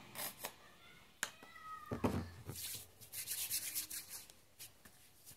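Palms rubbing together to work in a skin cream, a rapid dry swishing for about a second and a half in the second half. Earlier come a few light clicks of handling, a short squeak and a low thump about two seconds in.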